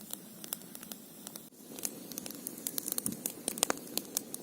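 Close handling noise as a freshly caught roach is held and unhooked: irregular soft clicks and rustles, coming thicker from about halfway through.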